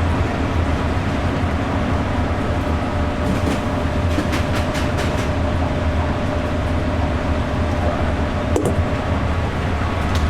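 Steady restaurant-kitchen din: a loud, even hum and hiss of kitchen equipment, with a few short clicks of utensils in the middle and one near the end.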